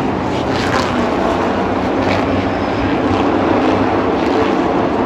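A pack of stock-car racing trucks running at speed around a short oval, their engines making a steady, loud, continuous drone.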